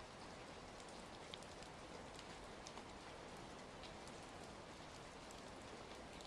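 Quiet steady rain, with scattered faint crackles from a fireplace fire mixed in.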